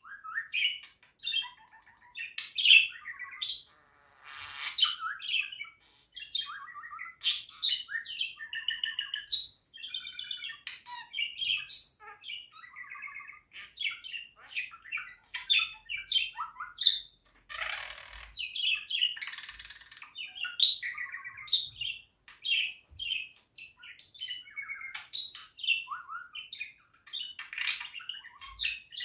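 Budgerigar warbling: a continuous run of chirps, whistles, clicks and scratchy notes, with brief pauses.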